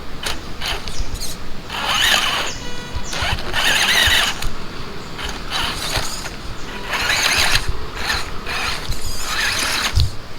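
Small electric motor and gearbox of a radio-controlled 4x4 crawler whining in repeated bursts of about a second each, as the throttle is applied and released.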